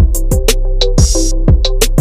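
Background music with a steady electronic drum beat, about two low drum hits a second with quick high ticks between them, over held synth notes.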